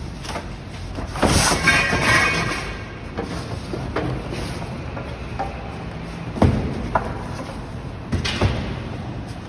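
A cardboard shipping carton scraping and rustling as it is slid up and off a sheet-metal indoor unit. Several sharp knocks and thuds follow in the second half as the packaging is handled.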